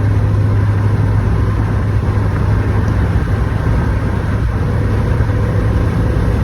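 Road and engine noise from a moving vehicle, heard inside the cabin: a steady low drone under an even hiss.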